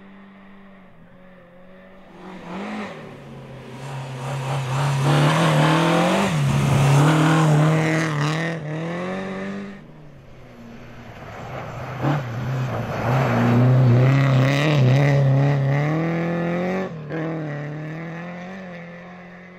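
Rally cars at full throttle on a snowy stage: engines revving hard with gear changes as they pass close by, in two separate passes. The first swells about three seconds in and stops abruptly near the halfway point; the second builds, peaks and fades away toward the end.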